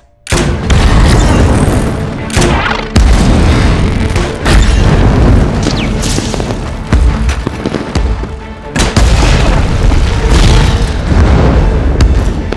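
Grenade-launcher blasts and explosions: a string of heavy booms, the first about a quarter second in and more big hits around three, four and a half and nine seconds, over a loud dramatic film score.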